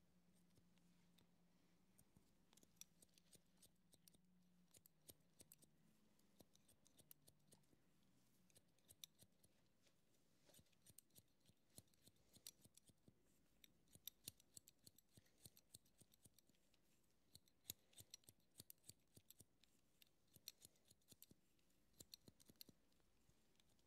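Hairdressing scissors snipping through hair in irregular quick runs of close-miked snips, faint overall but crisp.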